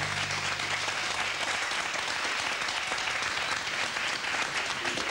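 Studio audience applauding, a steady patter of many hands clapping.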